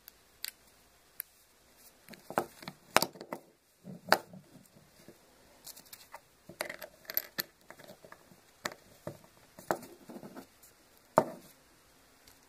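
Irregular small clicks and taps of a plastic fidget spinner being taken apart by hand, its snap-on bearing caps and body knocking and snapping, with one sharpest click near the end.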